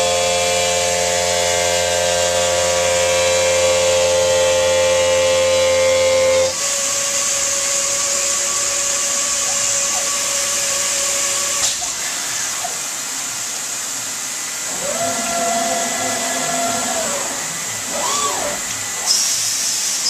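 CNC stone router's spindle and diamond profiling wheel grinding a countertop edge on a light pass, a steady whine with several tones and a low hum. It stops abruptly about six seconds in, leaving a steady hiss of water spray with a brief machine whine later on.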